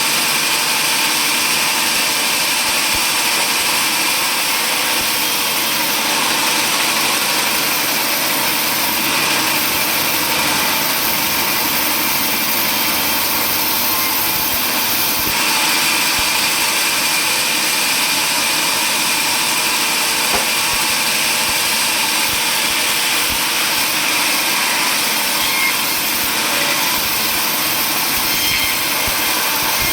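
A power saw running steadily under load, a continuous loud machine noise with a slight change in tone about halfway through.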